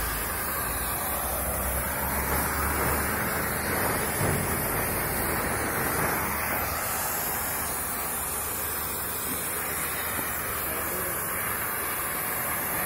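Oxy-fuel cutting torch on a CNC plate-cutting machine burning through steel plate: a steady hiss from the cutting-oxygen jet and flame, with no break.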